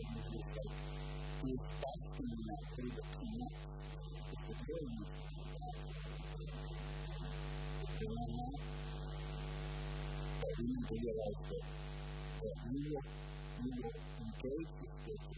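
Steady electrical mains hum with a stack of overtones, with faint, indistinct sounds coming and going over it.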